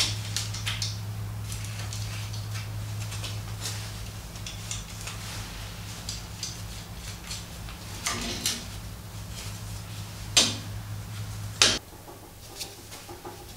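Metal clinks, taps and clicks as gloved hands work a Makita trim router in the steel mount of a homemade CNC machine, over a steady low hum. Two sharper clicks come near the end, just before the hum stops.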